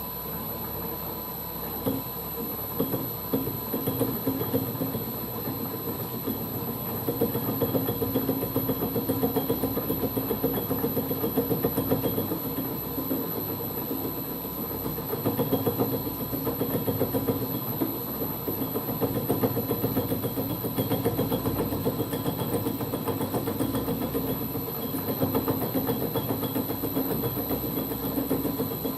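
Holbrook C8 toolroom lathe running with a fast, even mechanical clatter while a tool cuts around a T-bolt. It grows louder in several stretches of a few seconds each.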